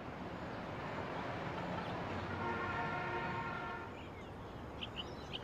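A passing vehicle swells and fades, with a horn sounding over it for about two seconds. Birds start chirping near the end.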